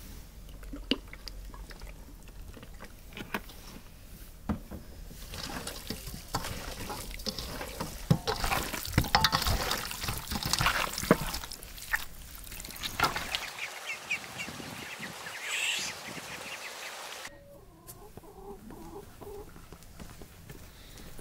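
Hands squeezing and mixing raw fish chunks in a steel bowl: wet squelching and slapping, loudest about halfway through, with chickens clucking in the background.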